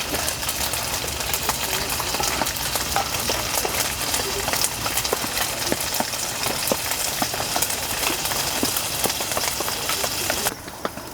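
Food sizzling and crackling in a hot pan, a dense run of small pops over a steady hiss, dropping off sharply near the end.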